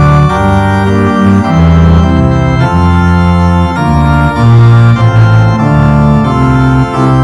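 Organ playing slow, sustained chords over a strong bass line, the chords changing about once a second.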